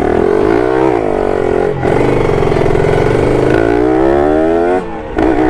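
Kawasaki Ninja motorcycle engine pulling away and accelerating. Its pitch climbs in each gear, with two brief drops at upshifts, about two seconds in and near the end.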